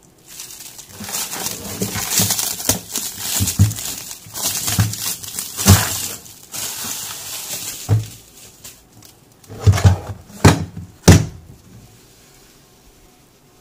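Plastic shrink-wrap crinkling and rustling as it is torn and pulled off a hard plastic tool case, followed by a few sharp knocks of the plastic case being handled.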